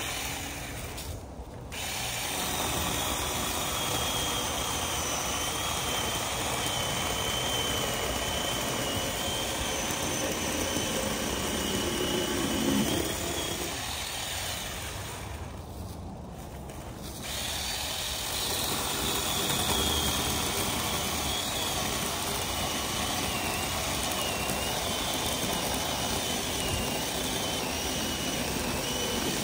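Ryobi 10-inch battery-powered chainsaw running and cutting through logs, its motor whine wavering as the chain bites into the wood. It drops off briefly about a second and a half in and again around the middle, then runs on.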